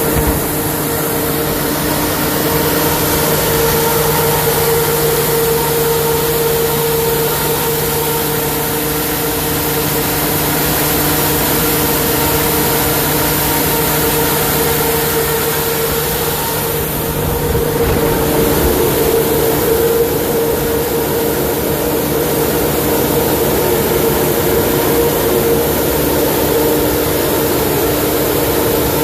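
Generac generator engine running steadily: an even engine drone over a constant rushing noise, dipping briefly about seventeen seconds in.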